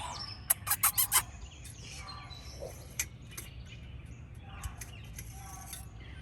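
Birds chirping in the background, with a quick run of four or five sharp clicks about half a second to a second in.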